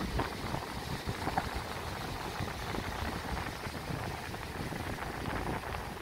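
Steady wind noise buffeting the camera's microphone, rumbling in the lows, with the rush of ocean surf breaking on the beach underneath.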